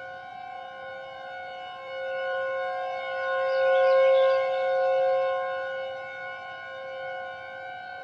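Federal Signal outdoor warning siren sounding a steady two-note alert tone that holds its pitch without wailing. It swells louder through the middle and eases back.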